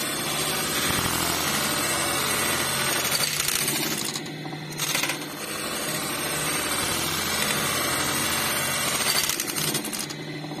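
Juki industrial buttonhole sewing machine running, a fast rattling clatter of stitching. It breaks off briefly twice, about four seconds in and again near the end.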